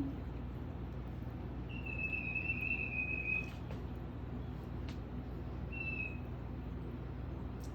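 A pet parrot whistling: one long, steady high whistle of over a second that dips slightly at the end, then a short whistle about two seconds later, with a few faint clicks over a steady low hum.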